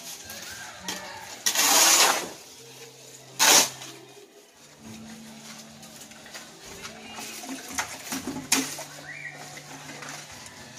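Gravel crunching and scraping as it is worked by hand, with two loud scrapes about two and three and a half seconds in and smaller clicks of stones after, over a steady low hum.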